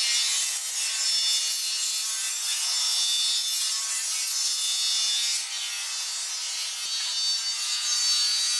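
Paint spray gun hissing steadily as it sprays, with a brief dip about five and a half seconds in.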